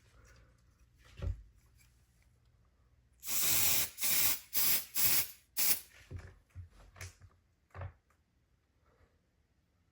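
Aerosol spray can hissing in short bursts: one spray of about half a second, then four quicker ones, followed by a few fainter, shorter sounds. A soft knock comes about a second in.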